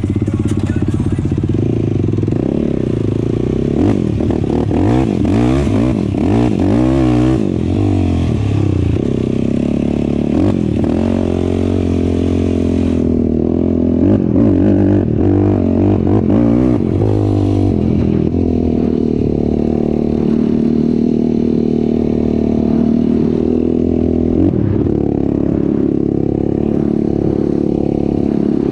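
Off-road vehicle engine running under the rider while driving across sand dunes, its pitch rising and falling with the throttle through the middle and settling to a steadier drone in the second half.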